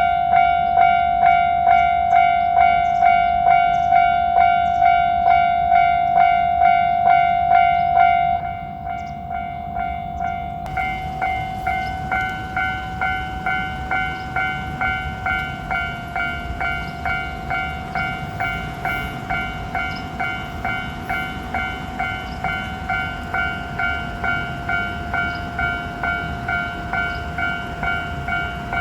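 Japanese level-crossing warning bell ringing its repeated electronic "kan-kan" alarm, about two strokes a second. It steps down in loudness about eight seconds in.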